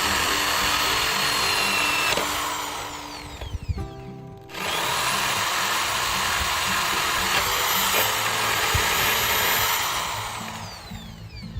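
Handheld power tool running under load in two long stretches, a short pause between them, each run winding down at its end.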